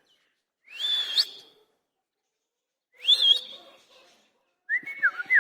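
Indian ringneck parrot giving three short whistled calls, each sliding sharply up in pitch and then holding.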